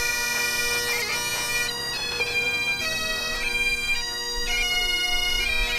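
Bagpipe music: pipes playing a melody over steady drones.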